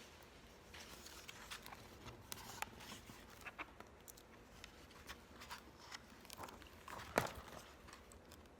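Faint rustling and soft clicks of a picture book being handled and a page turned, with one sharper click about seven seconds in.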